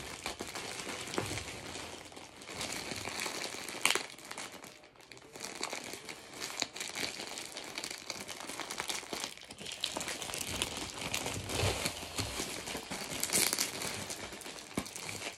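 Plastic mailer bag crinkling and rustling as hands rummage in it and pull an item out, with irregular crackles and a sharp snap about four seconds in.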